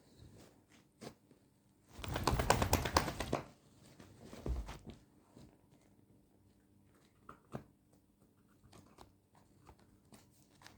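Sleeping Doberman snoring: one loud, rattling snore about two seconds in, followed by a softer breath, then only faint small clicks.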